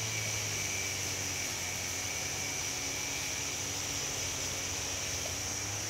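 Steady outdoor background noise: an even hiss with a constant high-pitched tone over a low hum, unchanging throughout.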